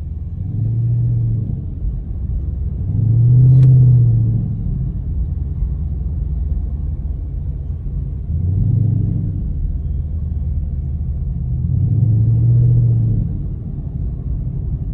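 The 5.7-litre Hemi V8 of a 2018 Dodge Charger R/T rumbling low while driving. It swells four times as the throttle is pressed and eased off, with a short click about three and a half seconds in.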